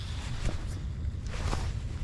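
Wind buffeting the microphone with a steady low rumble, and a brief soft swish about one and a half seconds in.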